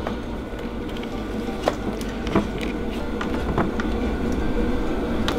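Faint clicks and light knocks of a hand working a sensor wire back into place among the harness and plastic panels of a snowmobile engine bay, over a steady low background hum.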